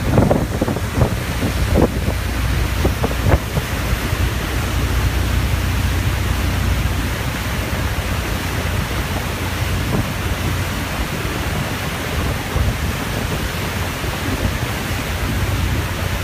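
Wind buffeting the microphone on a moving ferry, over the steady rush of the wake and a low rumble. The gusts are sharpest in the first few seconds, then settle into an even roar.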